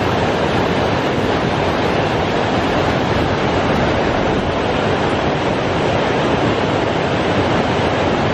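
Fast mountain river running over rocks: a loud, steady rush of whitewater, the stream high with snowmelt.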